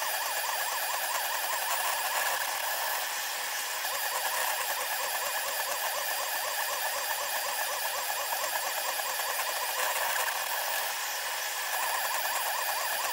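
SeeMeCNC Orion delta 3D printer's stepper motors running a print, played back sped up, giving a whine that wavers rapidly up and down in pitch over a steady hiss.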